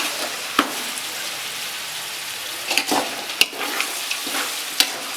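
Onions and fennel seeds frying in hot oil in a large pan, sizzling steadily while a ladle stirs them, with a few sharp knocks of the ladle against the pan.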